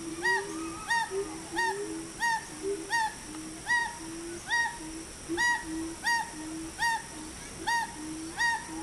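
Animal calls from the forest canopy: short, arching pitched calls repeated more than once a second, with lower short notes between them.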